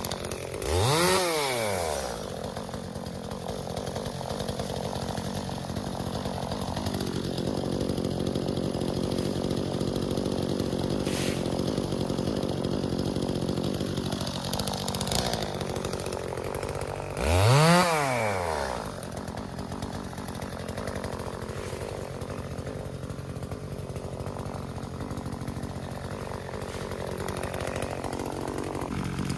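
Two-stroke chainsaw running steadily, with two brief throttle revs: about a second in and again a little past halfway, each rising sharply in pitch and dropping straight back.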